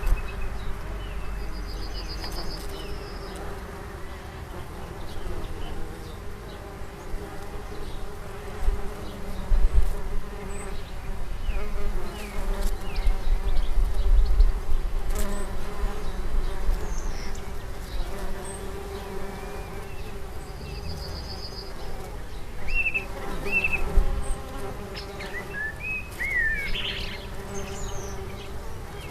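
A bee buzzing steadily close by, its hum holding one pitch with slight wavers, while small birds chirp briefly in the background, several times near the end.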